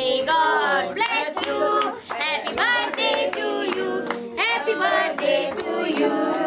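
A group of people singing together while clapping their hands along.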